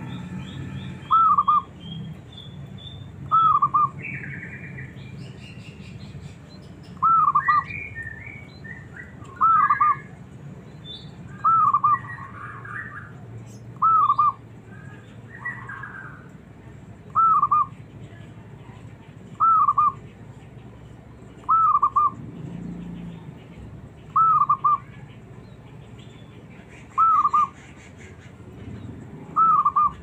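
Zebra dove (perkutut) cooing, a short high arched phrase repeated about every two to three seconds. Fainter chirps of other small birds come between the calls.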